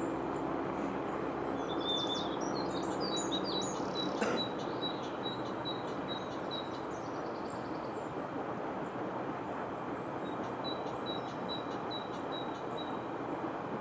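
Small birds singing, one repeating a short high note in an even series, twice over, against a steady rushing background noise. A single sharp click comes about four seconds in.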